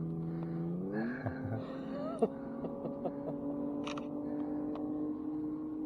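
A boat's motor running steadily, its pitch stepping up about a second in, holding, and dropping back down near the end, with a few light clicks over it.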